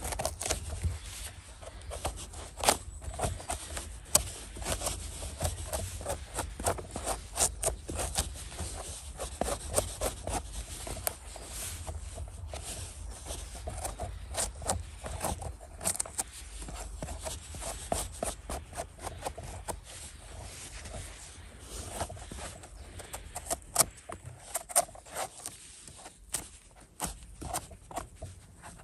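Footsteps and rustling through forest-floor litter, with irregular crackles, rubs and scrapes of handling close to the microphone over a steady low rumble.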